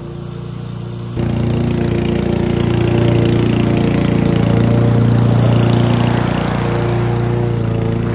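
Gas engine of a walk-behind push mower running steadily while it mows, jumping suddenly louder about a second in, loudest around the middle as it passes close by, then easing off a little.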